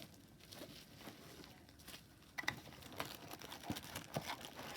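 Packaging being handled while the camcorder's accessories are taken out of the box: faint rustling at first, then busier crinkling and light clicks from about halfway through.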